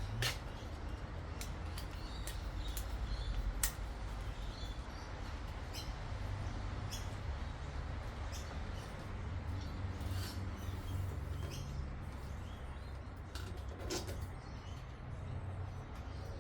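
Low steady hum with scattered light clicks and taps, as of tools and small parts being handled.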